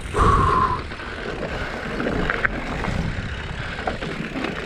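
Mountain bike rolling down a rocky dirt trail: tyres crunching over dirt and stones with wind rumble on the microphone, a short high squeal near the start and a few sharp clicks and rattles from the bike.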